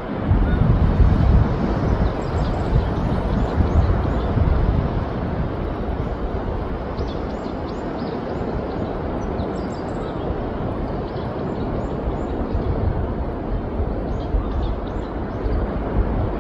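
Steady rush of surf with wind on the microphone, gusting hardest in the first few seconds.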